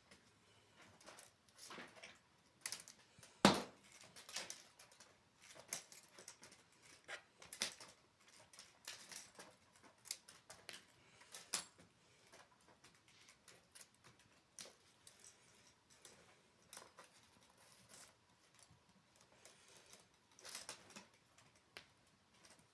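Faint, irregular small clicks and rustles in a quiet small room, scattered throughout, with one sharper knock about three and a half seconds in.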